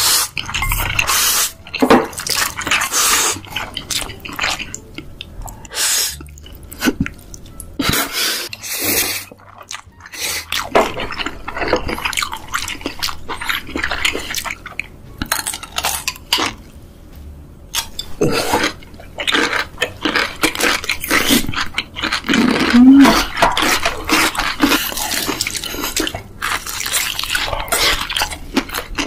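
Close-up eating sounds: noodles slurped with chopsticks and fried chicken being bitten and chewed, in irregular short bursts.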